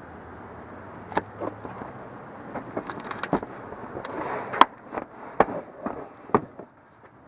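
Stored items being shifted and handled: a run of irregular knocks and clatters, the loudest about four and a half seconds in.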